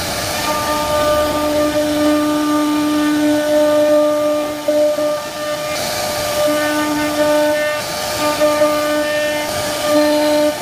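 CNC router spindle running at a steady high whine with a hiss of cutting as the bit carves wood; the lowest tone of the whine drops out and comes back several times.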